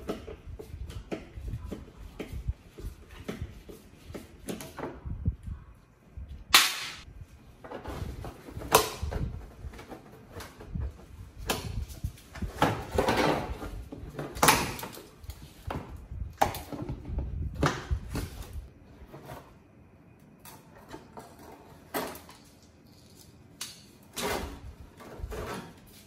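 Hand tool clicking rapidly as bolts are undone on an old scooter's leg shield, then a string of sharp knocks and rattles as the loosened body panel is worked free and handled.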